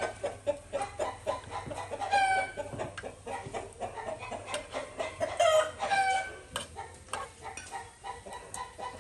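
Chickens clucking, with louder short calls about two seconds in and again around five to six seconds in.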